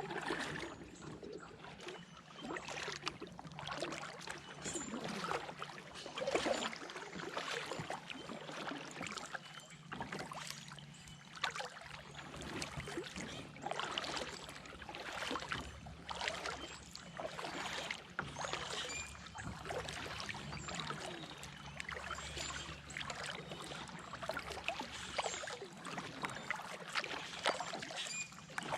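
Kayak paddle strokes: water swishing and dripping off the paddle blades in a steady rhythm, about one stroke every two seconds, over a faint steady low hum.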